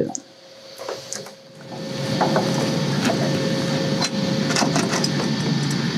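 Ratchet wrench clicking rapidly and steadily as the main oil screen is unbolted from the underside of the Corsair's engine. It starts about two seconds in, after a few scattered clicks.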